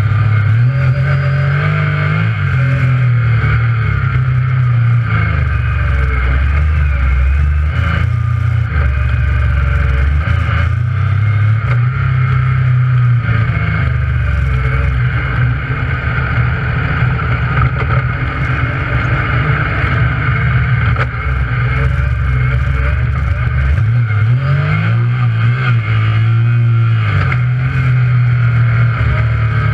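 Yamaha YXZ1000R side-by-side's three-cylinder engine running hard on a trail, its pitch rising and falling several times as the throttle is worked and the gears change. A steady hiss runs beneath it.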